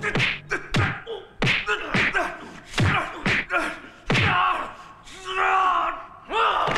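Martial-arts film fight sound effects: a rapid string of punch and kick impacts and swishes, with a fighter's shout or grunt among them.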